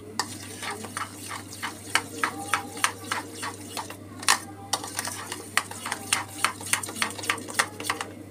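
Wire whisk beating a thick yogurt batter in a stainless steel bowl, its wires clicking against the metal sides several times a second in an uneven rhythm, working the batter smooth and lump-free.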